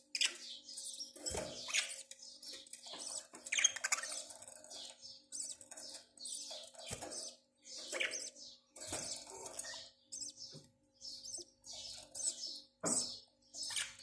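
Caged budgerigars chirping and warbling, a continuous, irregular chatter of short high-pitched calls. A faint steady hum runs underneath.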